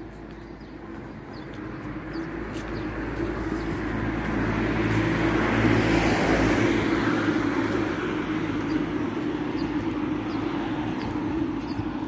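A car passes close by on the street. Its engine and tyre noise swells to a peak about six seconds in, then fades. Birds call faintly in the background.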